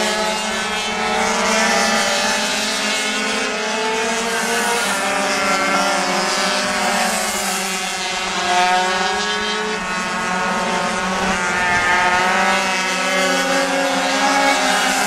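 Several small racing motorcycle engines revving high together, their pitches rising and falling and overlapping as the bikes accelerate and brake around the corners of a tight track.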